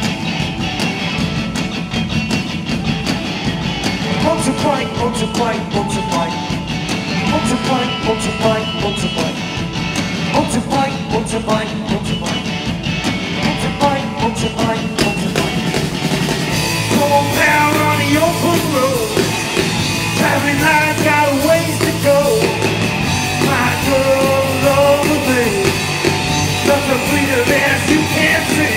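Live garage rock band playing: electric guitars, bass guitar and a drum kit, with a lead singer's voice coming in a little past halfway and the band getting slightly louder.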